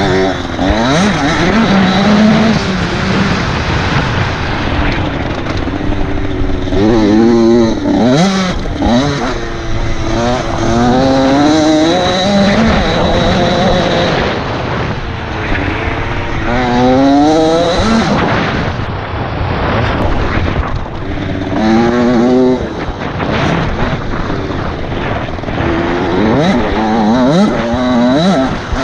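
Motocross bike engine heard onboard, revving up in pitch and dropping back again and again as the rider accelerates between turns and jumps, over a steady rush of wind on the microphone.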